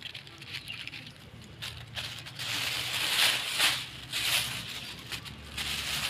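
Thin plastic bag and old plastic crinkling and rustling as they are handled and stuffed into the bag, in irregular bursts with a denser spell about halfway through.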